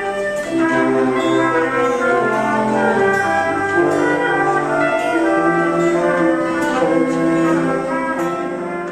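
Orchestral soundtrack music led by brass, playing held chords that change every second or so and growing a little quieter near the end.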